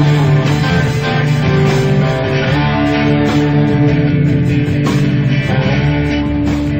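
Instrumental passage of a rock song, led by guitar over bass.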